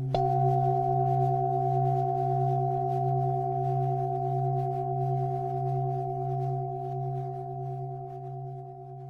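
A struck, bell-like tone rings out a moment in over an already sounding low drone that wavers slowly, then sustains and fades gradually.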